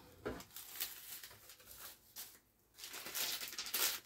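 Plastic bags crinkling and rustling as a hand rummages through a shopping haul, with a short quiet gap about two and a half seconds in, then louder crinkling near the end as a plastic bag of gum balls is pulled out.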